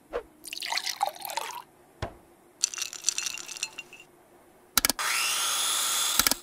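Cartoon kitchen sound effects: a few sharp clicks and two spells of glassy, watery clinking, then about five seconds in a steady rushing, liquid sound with a rising tone that lasts just over a second.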